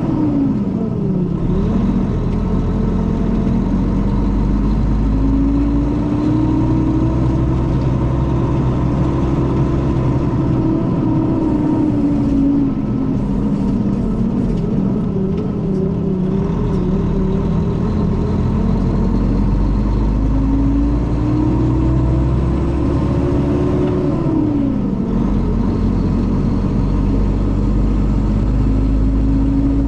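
Mercedes-Benz O500RS coach's diesel engine pulling away and accelerating through the gears. Its note climbs, eases back in the middle, and drops sharply at a gear change about a second in and again about five seconds before the end. The engine has a note the uploader likens to the older O400RSE.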